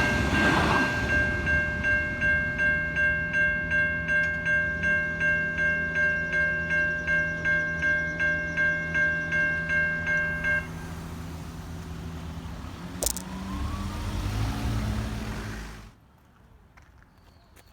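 Older Safetran Type 3 electronic level-crossing bells ringing in a steady pulse of about two and a half strikes a second as the noise of a passing train dies away; the bells stop about ten seconds in. A lower mechanical hum with a sharp click follows, which the crossing's boom-gate mechanisms raising the gates may make, before the sound drops away suddenly near the end.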